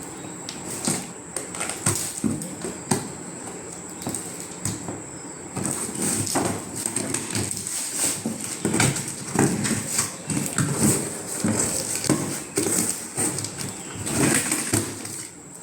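Packaging of a boxed ceiling fan being handled: cardboard and plastic rustling, sliding and knocking in short irregular bursts, busier from about six seconds in.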